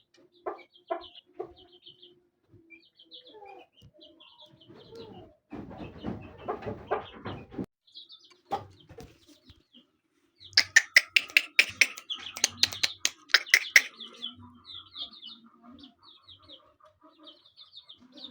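Chickens clucking, with short high chirps throughout. About six seconds in there is a noisy rustle. About ten seconds in comes a loud run of quick sharp taps, some five a second, lasting about three seconds.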